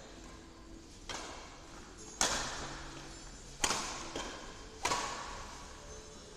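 Badminton rackets striking a shuttlecock in a rally: four sharp cracks about a second apart, the first softer, each trailing a short echo in the hall.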